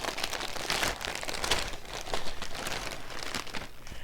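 Packaging crinkling and rustling continuously as it is handled and opened by hand.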